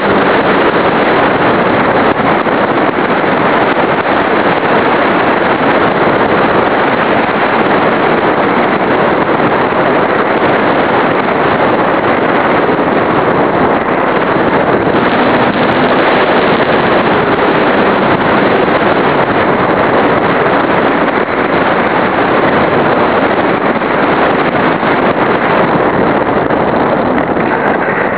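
Loud, steady rush of wind and propeller noise on a camera riding on an RC Skytrainer 182 model plane powered by an E-flite Power 25 brushless electric motor, in flight with no clear motor tone. The sound eases slightly near the end as the plane comes down onto the runway.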